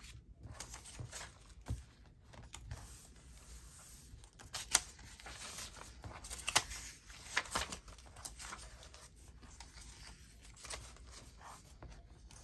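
Sheets and scraps of paper being handled and sorted: intermittent rustling and crinkling, with a few sharper crackles around the middle.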